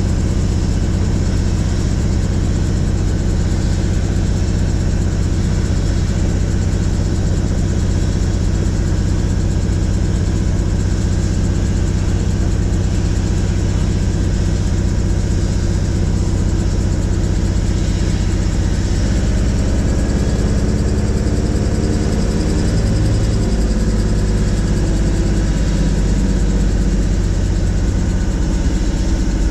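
Helicopter engine and rotor running steadily with a constant low hum and hiss; about two-thirds of the way through the pitch of the hum shifts and glides for a few seconds, then settles again.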